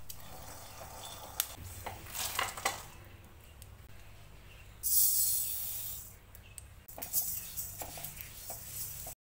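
A silicone spatula stirs peanuts in a dry metal wok with light scraping clicks. About five seconds in, flax seeds are poured into the wok with a hissing rattle, followed by a few light stirring scrapes of the seeds.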